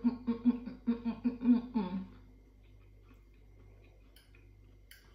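A woman's closed-mouth 'mm-mm-mm', a quick rhythmic run of about five voiced pulses a second, lasting about two seconds and dropping in pitch at the end. A sharp click near the end is a fork against the plate.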